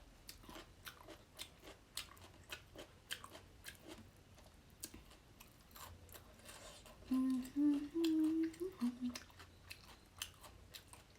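Close-miked chewing and wet mouth clicks of a person eating. About seven seconds in, the person hums briefly, a couple of seconds of a few rising notes, the loudest sound here.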